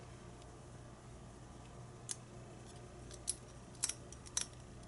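A few faint, sharp metal clicks of a small tool working in a disassembled pin-tumbler lock's third pin chamber, coming at uneven gaps over a low steady hum.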